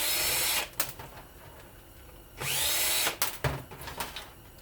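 Cordless power drill run in two short bursts, each spinning up and winding down with a whine, with clicks and knocks between bursts as metal parts of a ceiling fan are worked apart.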